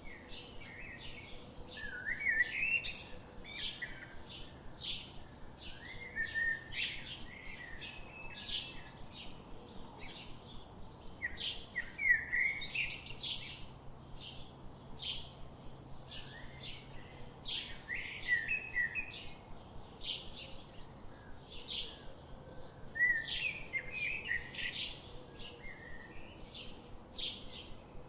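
Songbirds chirping: a steady stream of quick, high chirps, with warbled song phrases breaking in every few seconds.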